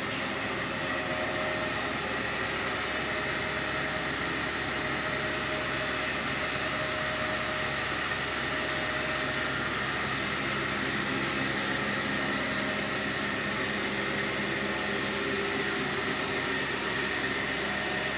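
Steady mechanical whir with a faint hum, like a fan motor running.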